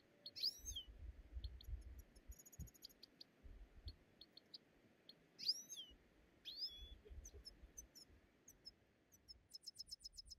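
Small birds chirping and calling: short high chirps, a few swooping calls, and a quick run of chirps near the end, over faint low rumbling.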